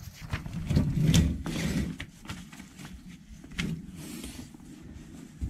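Workshop handling noises: scattered metallic clicks and knocks of parts and tools being moved, over a low rubbing rumble that is loudest between about half a second and two seconds in.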